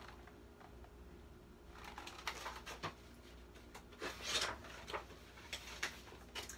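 Faint rustling of a picture book's paper pages as they are handled and turned, a few separate swishes.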